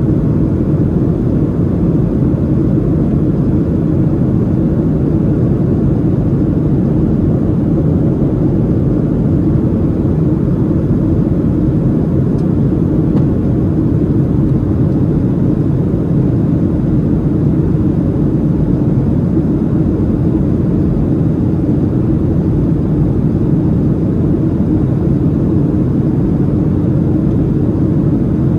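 Steady, low cabin noise inside a Boeing 737-700 on approach: the rush of air past the fuselage and the hum of its CFM56-7B jet engines.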